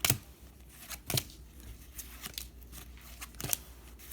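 Pokémon trading cards being handled and flipped through by hand, giving a few sharp card snaps, the loudest right at the start.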